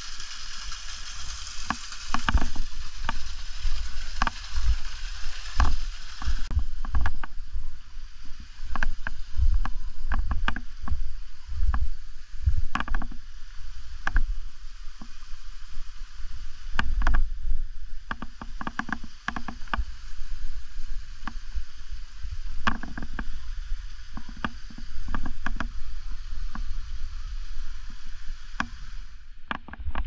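Low rumble and irregular sharp knocks and crunches of a handheld action camera being moved about over snow and rock. A steady hiss runs through the first six seconds or so, then cuts off abruptly.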